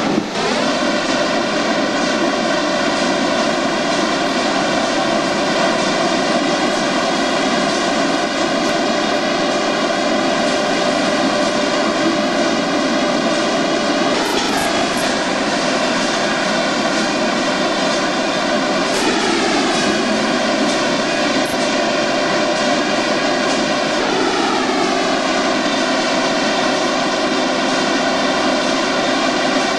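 Steady, loud pitched drone of running industrial machinery, like a fan or motor drive. Its pitch slides down and settles three times, about five seconds apart.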